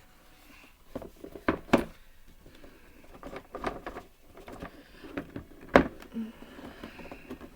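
A cardboard box being handled and turned: scattered knocks and taps with light scraping, the loudest knock a little before the end.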